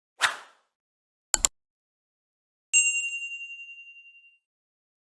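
Edited-in sound effects: a short whoosh, a quick double click, then a bright bell ding that rings out, pulsing as it fades.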